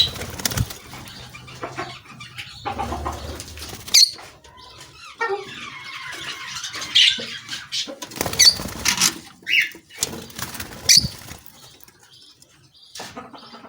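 Lovebirds giving short, sharp, high chirps at irregular intervals, with scratchy rustling between the calls.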